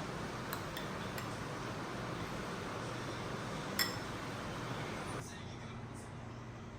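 Steady low room hum with a few faint ticks and one sharper clink a little under four seconds in, like glass or dishware touched lightly. The background hum drops suddenly about five seconds in.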